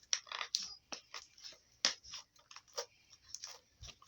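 Freshly made slime being pressed and pulled around a dish to pick up the leftover residue, giving a string of short, irregular sticky clicks and crackles.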